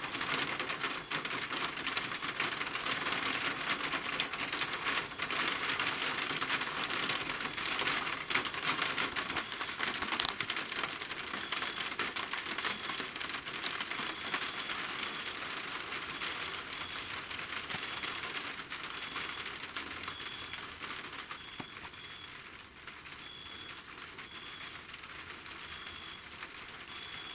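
Rain falling steadily and pattering on surfaces, dense and crackly, slowly easing off. From about halfway, a short high chirp repeats roughly once a second.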